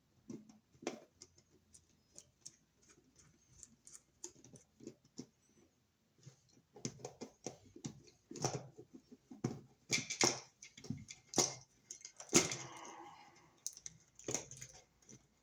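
Irregular small clicks and taps of a screwdriver and wires being handled at an old wall receptacle's terminal screws, sparse at first and busier and louder in the second half, with a brief scrape about twelve seconds in.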